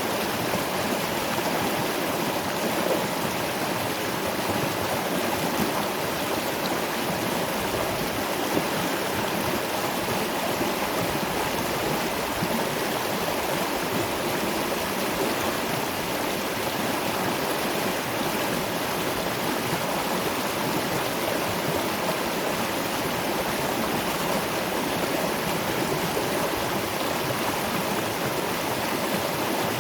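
Water rushing steadily over a waterfall and along a stream, an even, unbroken splashing.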